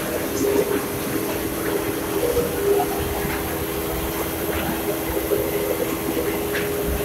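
Small belt-driven machine running steadily as it draws white strands through it: a constant hum with a low rumble and a light, irregular rattle.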